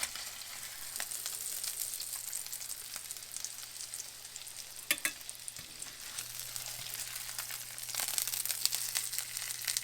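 Breaded chicken breasts sizzling and crackling in olive oil and butter in a skillet as they are turned, with a sharp knock at the start and another about five seconds in. The crackle grows louder about eight seconds in.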